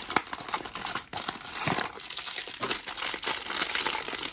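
Blind-box packaging being opened by hand: a plastic wrapper or bag crinkling and tearing, with many small crackles throughout.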